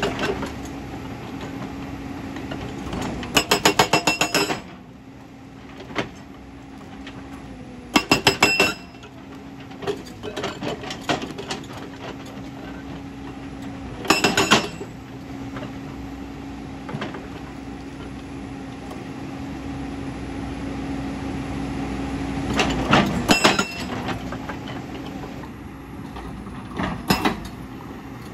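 JCB crawler excavator's hydraulic rock breaker hammering on boulders in about five short bursts of rapid blows, breaking large stone. Between bursts the diesel engine runs steadily.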